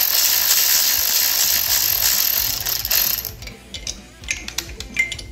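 Cordless electric ratchet running continuously, driving down an intake manifold fastener on a Shovelhead V-twin, then stopping about three and a half seconds in, followed by a few sharp clicks.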